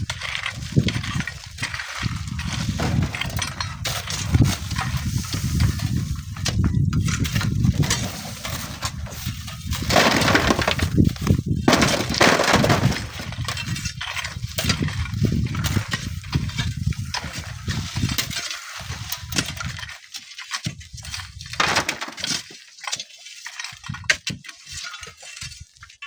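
Strong wind buffeting the microphone in gusts, with crackling and clattering of sand and stones breaking off and falling down a dry sand cliff. The clattering grows louder and brighter for a few seconds near the middle.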